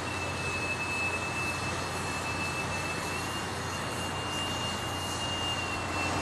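Boatswain's pipe sounding one long, nearly steady high whistle: the call for piping a dignitary aboard as sideboys render honors. It plays over steady background noise.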